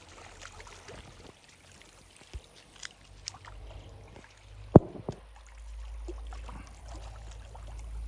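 Small waves lapping and splashing at the edge of a reservoir, with scattered soft clicks and a low wind rumble on the microphone building from about halfway. One sharp click just before five seconds is the loudest sound.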